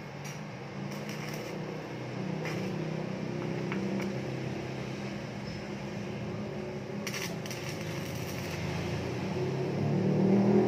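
Electric arc welder crackling and buzzing over a steady hum as weld is built up on the stripped thread at the end of a scooter crankshaft, so that it can be cut with a new thread afterwards.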